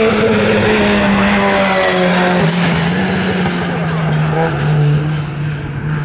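Hill-climb race car's engine running at high revs under full throttle as the car drives through a bend, its pitch dropping a little about two seconds in, with a short sharp crack about halfway. The sound falls away near the end as the car moves off.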